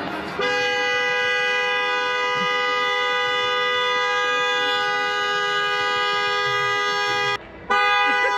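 Car horn held down in one long steady honk of about seven seconds, two notes sounding together; it is released briefly near the end and pressed again.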